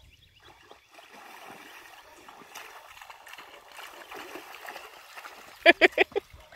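Water splashing and swishing as a child wades and runs through shallow pond water. Near the end, four short, loud cries in quick succession.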